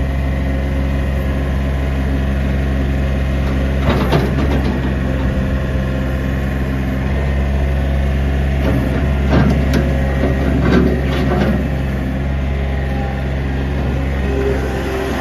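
Gehl 3935 skid steer loader's 36 HP Yanmar diesel running steadily, with short clattering knocks about four seconds in and again between about nine and eleven seconds.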